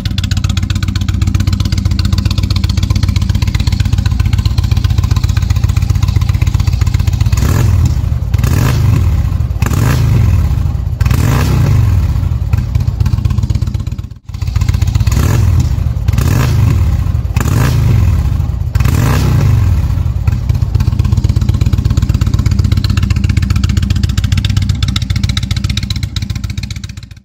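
Indian Chieftain V-twin fitted with Rinehart slip-on mufflers, idling and then blipped through a run of quick revs that rise and fall. The sound cuts out for an instant near the middle, then another run of blips follows, and it settles back to a steady idle.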